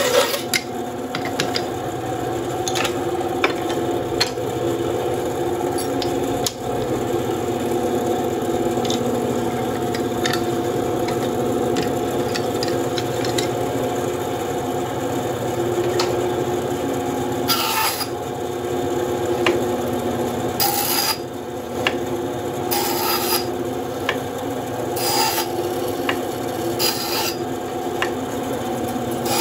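WEN 3939 9-inch bandsaw with a 1/4-inch blade running with a steady hum while strips of wood are ripped on it. Five short rasping bursts come about every two seconds in the second half.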